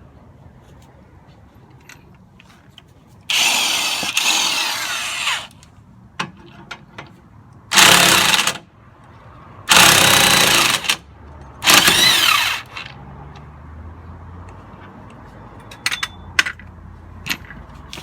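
A power tool run in four bursts of one to two seconds each, the first the longest, with a few small clicks and knocks after them.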